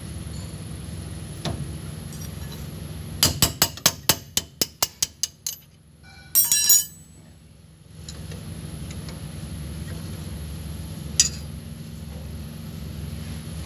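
Sharp metallic clicks from hand tools working on a brake caliper's hose fitting: about a dozen clicks that slow down over two seconds, then a short rapid rattle of clicks, with one more click later over a steady low hum.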